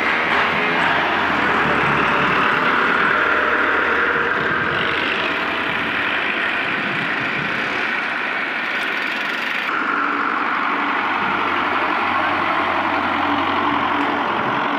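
Diesel farm tractors running as they pull trolleys loaded with sugarcane past close by, a loud, steady engine noise throughout.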